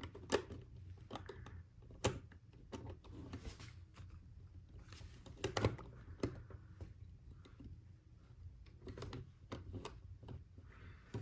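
Plastic LEGO pieces being handled and pressed together, giving scattered irregular clicks and taps, the sharpest about two seconds in and near the middle.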